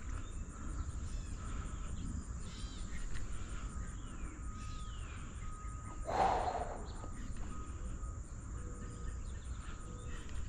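A steady, high-pitched insect trill from a summer chorus, with faint chirps over it and one brief louder rush about six seconds in.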